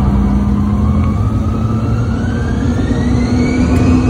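Bombardier CRJ-900's twin rear-mounted GE CF34 turbofans spooling up for the takeoff roll, heard inside the cabin: a loud, steady engine rumble with a whine that rises in pitch and levels off near the end.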